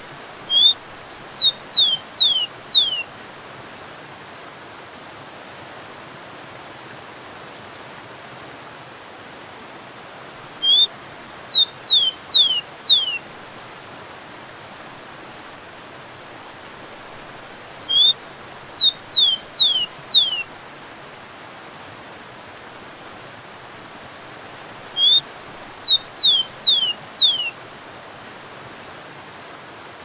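Rufous-collared sparrow (tico-tico) singing four times, each song about two and a half seconds long: a short rising note, then a run of about five clear whistles that slide downward. Under the songs runs the steady rush of a waterfall.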